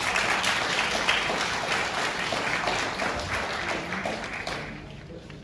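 Audience applauding with many hands clapping, dying away about four and a half seconds in.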